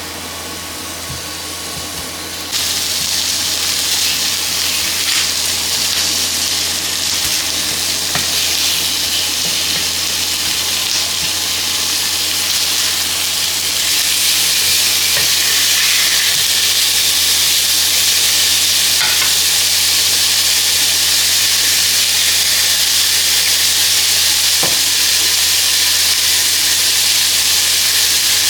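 Food sizzling in a hot frying pan: a steady hiss that gets louder about two and a half seconds in and again about halfway through.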